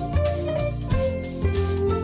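Upbeat background music: plucked, guitar-like melody over a bass line with a steady beat.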